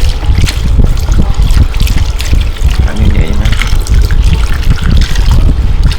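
Running water trickling steadily, over a heavy low rumble.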